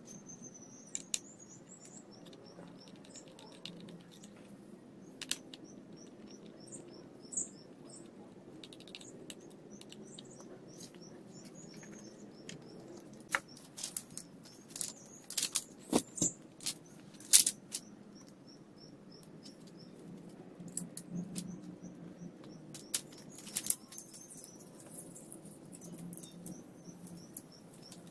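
Thin split-wood slats clacking and knocking against one another as a bundle is gathered up and handled, in two clusters of sharp knocks, the loudest about halfway through. A steady series of short high chirps runs underneath.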